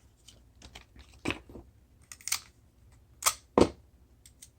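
Paper and sticky tape handled by hand: a scattering of small, irregular taps and crinkles, with two sharper taps close together about three and a half seconds in.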